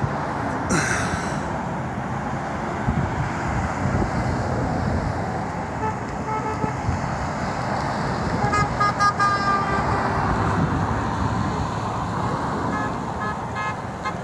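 Cars and trucks driving past with steady road noise and car horns honking, in short toots and longer blasts, in the second half. A short hiss sounds about a second in.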